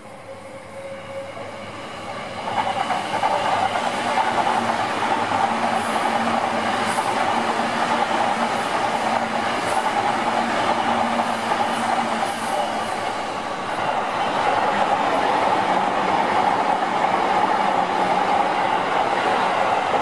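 Electric commuter trains running past on the tracks close by. The sound builds up about two seconds in and stays loud and steady, dips briefly about two-thirds through, then rises again.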